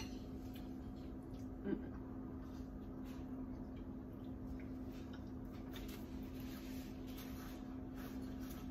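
Faint chewing of a toasted grilled cheese sandwich: scattered soft crunches and mouth clicks over a steady low hum.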